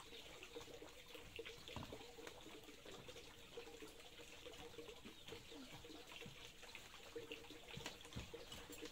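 Near silence: faint background ambience with a few soft clicks.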